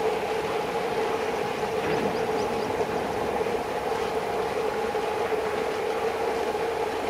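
Diesel locomotives running as they approach from a distance, an ALCO leading an EMD WDG4: a steady engine drone with a held low hum.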